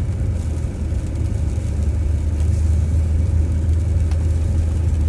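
Chevrolet Tahoe driving, heard from inside the cabin: a steady low engine and road drone that grows a little stronger about a second and a half in.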